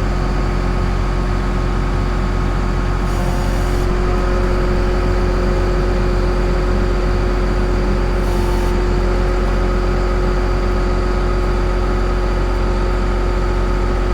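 Tractor engine running steadily, with two short hisses about three and eight seconds in.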